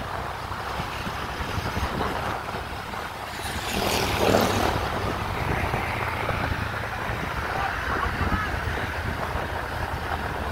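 Steady low engine hum and wind buffeting the microphone from a moving road vehicle, with a louder swell about four seconds in.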